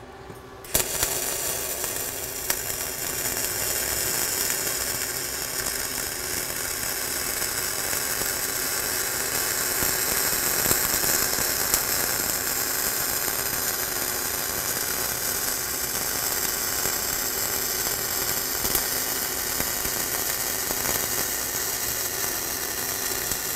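Flux-cored wire-feed welding arc struck a little under a second in and then running steadily overhead: a continuous crackling sizzle with occasional sharper pops. The machine is set hot, at 25 volts with 300 wire feed speed, to cut down spatter.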